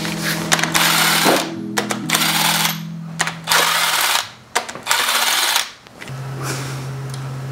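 A power tool driving a socket on a long extension buzzes in four bursts of about a second each, spinning out the connecting-rod cap bolts of a 2JZ engine block. Under it plays background music with sustained chords that shift twice.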